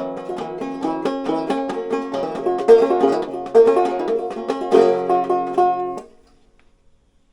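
Five-string banjo, a Stromberg Cuppophone, being played: a quick, steady run of plucked notes that stops abruptly about six seconds in, leaving near silence.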